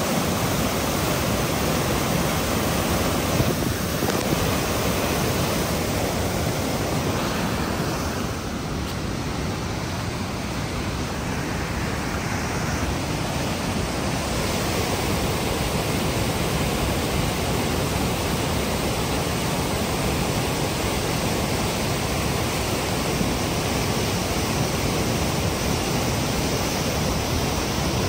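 Flash flood torrent of muddy water rushing over boulders down a creek bed: a steady, loud rushing that dips slightly about eight seconds in.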